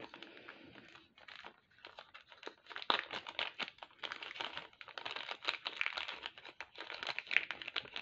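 Small clear plastic zip-lock bag crinkling and rustling in the hands as it is handled and opened to get at the jewellery clasps inside: a run of irregular small crackles, sparse at first and thicker from a couple of seconds in.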